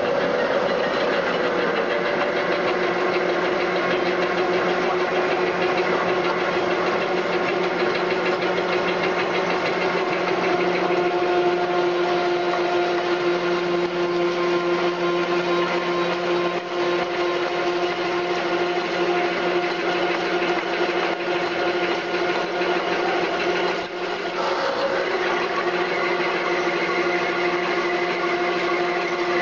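CNC vertical hydraulic lathe running steadily as its tools cut a metal end-plate flange, a continuous machine noise with a few steady held tones that shift in pitch a few seconds before the end.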